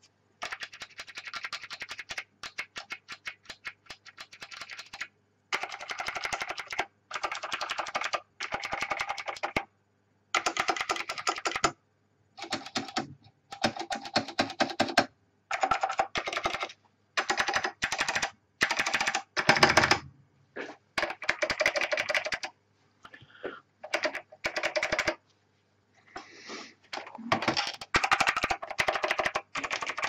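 Acer 6012 keyboard with white Alps switches being typed on: fast strings of key clicks in runs of a second or two, separated by short pauses.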